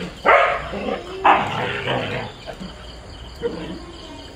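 A Siberian husky and a border collie scuffling with each other: two loud barks in the first second and a half, then quieter dog noises.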